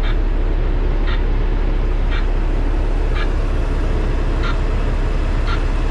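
Heavy truck's diesel engine running with a steady low rumble, while a backup alarm beeps about once a second over it.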